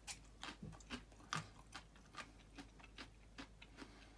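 A person chewing a mouthful of food: faint, irregular wet mouth clicks, about three a second.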